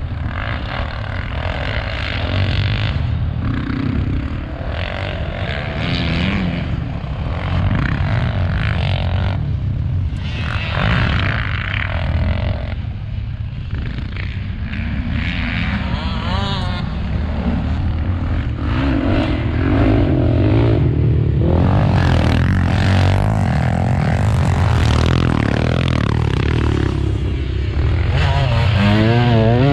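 Off-road engine revving up and down with the throttle while being ridden over a dirt track, over a constant low rumble; it gets somewhat louder in the second half.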